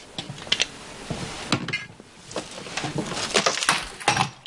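A run of light clicks and knocks from objects being handled on a bar counter, with a quick cluster of sharper knocks about three to four seconds in.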